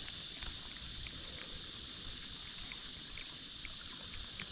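Steady, high-pitched chorus of insects, unbroken throughout, with a few faint scattered ticks.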